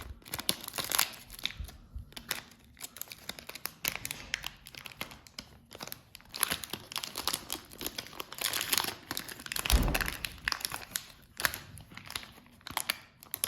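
Plastic wrapper of a trading-card fat pack being crinkled and torn open with some difficulty, in irregular bursts of rustling and crackling, with a heavier knock about ten seconds in.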